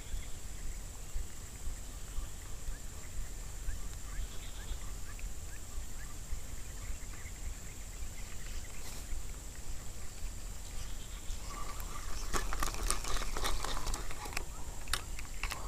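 Quiet outdoor ambience with a steady high insect drone and faint bird chirps. About twelve seconds in, a spell of clicking and rustling starts.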